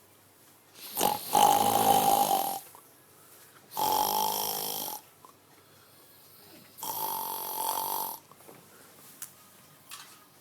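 Loud snoring: three long snores about three seconds apart, each lasting over a second.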